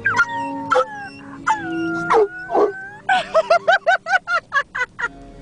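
A dog and a person howling together, with long, drawn-out wavering howls. From about three seconds in comes a quick run of short rise-and-fall yelps, about six a second.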